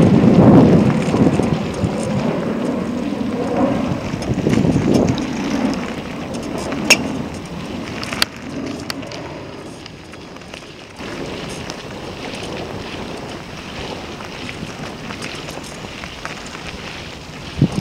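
Wind buffeting the camera's microphone, with rustling and handling noise as the camera is carried quickly along the bank; a couple of sharp clicks come about seven and eight seconds in, and the noise is quieter over the second half.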